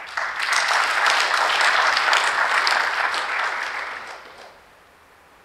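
Audience applauding, starting at once and fading out about four and a half seconds in.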